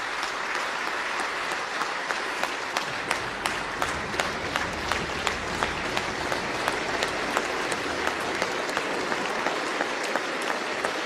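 A large roomful of people applauding steadily, with single sharp claps standing out above the mass of clapping.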